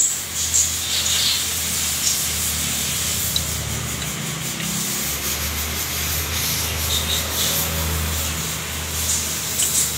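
Hands and a wrench rubbing and scraping against metal and hoses in a cramped engine bay while working loose the two tight 10 mm bolts of a thermostat housing, with a few small clicks and a steady low hum underneath.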